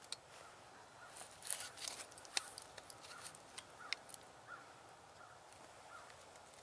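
Faint outdoor quiet broken by scattered sharp ticks and crackles, most of them in the first four seconds, with small short calls recurring about once a second in the background.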